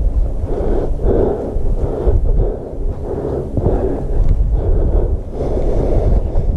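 Heavy, rhythmic breathing of a hiker close to the microphone, about one breath a second, from the effort of climbing a steep trail, over a low rumble.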